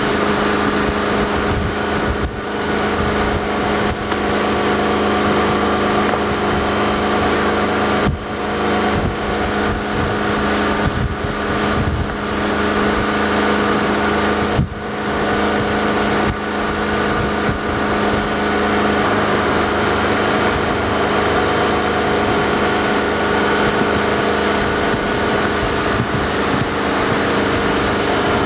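Motorboat engine running steadily at speed, with a constant drone; the sound briefly drops away twice.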